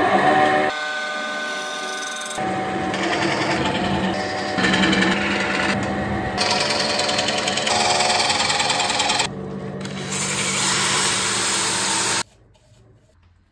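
Wood lathe running with a steady hum while a gouge cuts into a spinning oak bowl blank, the sound switching abruptly several times between passes. A drill-driven sanding pad works the inside of the bowl before the sound drops away about 12 seconds in.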